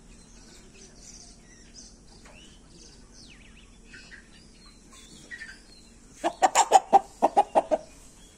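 A chicken clucking: a quick run of about ten loud, sharp clucks, roughly six a second, starting about six seconds in and lasting about a second and a half. Faint small-bird chirps come before it.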